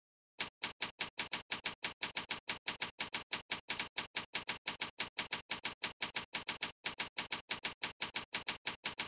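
Keyboard typing clicks: a fast, very evenly spaced run of keystrokes, about six a second, starting about half a second in after a moment of silence.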